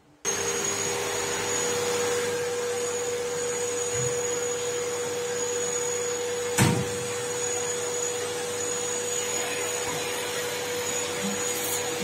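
Bagged canister vacuum cleaner switching on abruptly about a third of a second in, then running steadily with a constant high whine while it vacuums the floor. One sharp knock comes about six and a half seconds in.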